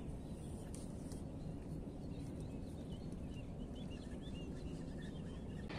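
Birds chirping in short repeated calls from about two seconds in, over a steady low background noise.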